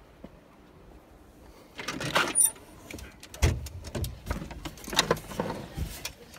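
Doors being opened by hand. About two seconds in, a storm door's latch clicks and the door is pulled open with a brief high squeak. Knocks and clicks follow as an inner door's knob is turned and the door is pushed open.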